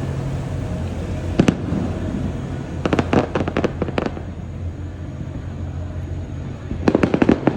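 Aerial fireworks bursting: a single bang about a second and a half in, a quick string of crackling bangs around three to four seconds in, and another string near the end, over a steady low rumble.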